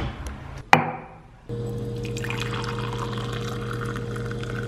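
Two sharp clicks, then a stream of water poured into a ceramic mug holding a tea bag. The pour sets in about a second and a half in and runs on steadily, over a steady low hum.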